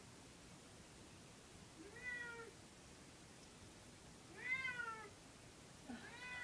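Wet cat meowing in distress while being bathed: three drawn-out meows about two seconds apart, each rising and then falling in pitch.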